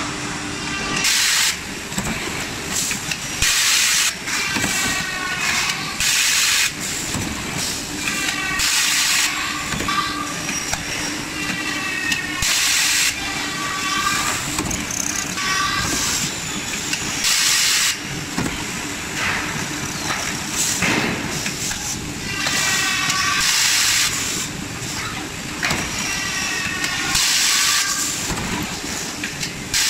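CNC automatic screw drilling and fastening machine at work on window profiles. Short hisses of compressed air come again and again from its pneumatic clamps and head, and motors whine up and down in pitch as the head drives and moves. A steady low hum runs underneath.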